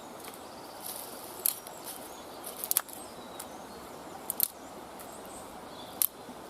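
Steady outdoor background hiss with about half a dozen brief, sharp clicks and snaps scattered through it: sticks and a knife being handled while a fire is prepared.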